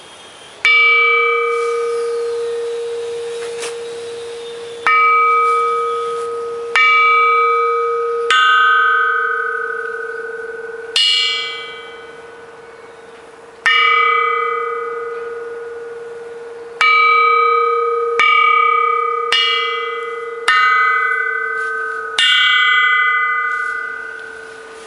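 Cast bronze cowbell struck about eleven times at uneven intervals. Each strike rings out with a clear, sustained tone that slowly fades before the next.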